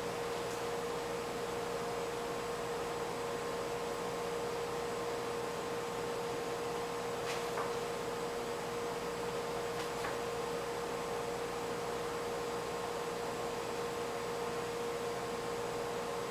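A steady electrical hum at one middle pitch, unchanging throughout, with a few faint clicks.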